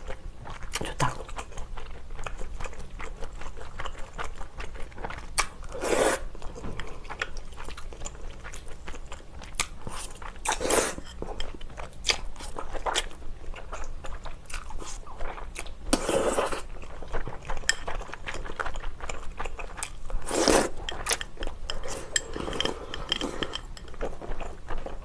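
Close-miked eating of glass noodles: chewing and crunching mouth sounds with many small clicks, and about four louder slurps spread through the clip.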